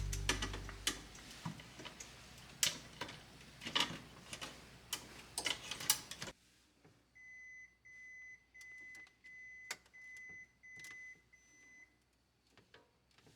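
Items and containers clicking and knocking as they are handled for about six seconds, then a refrigerator's door-open alarm beeping, about seven high, even beeps in a row.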